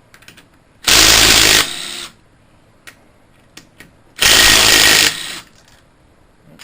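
Impact wrench zipping out cylinder head bolts on a Kohler engine: two short bursts about three seconds apart, each trailing off quieter, with small clicks of the socket and bolts in between.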